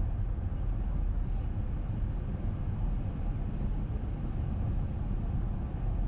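Steady road and engine noise of a car cruising, heard from inside the cabin: an even low rumble that does not change.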